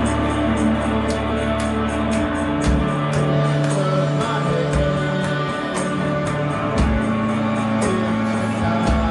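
Live band jamming: long held bass notes that change pitch every second or two under guitar, with steady cymbal hits several times a second.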